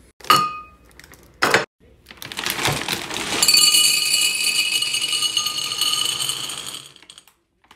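A ringing glass clink and a knock, then Cadbury Mini Eggs poured from a bag into a glass jar. The many small, hard candy-coated eggs hitting the glass make a dense, steady rattle that lasts about five seconds and stops near the end.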